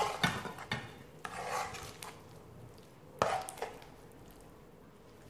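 Large metal spoon scooping and scraping thick risotto in a metal pan, with a sharp metallic clink a little after three seconds in and a smaller one just after.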